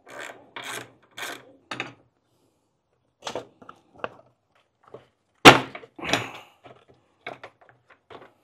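Scattered clicks and knocks of a ratchet and hard plastic parts as the last 10 mm bolt is taken out and the Honda Civic's stock plastic airbox is worked loose. The loudest is a single sharp clunk about five and a half seconds in.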